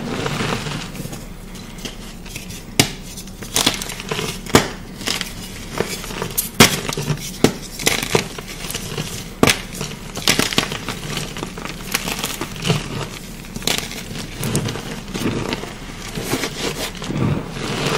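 Chalk being crushed and crumbled close to the microphone: irregular sharp crunches and cracks over a steady gritty crumbling, the loudest crack about six and a half seconds in.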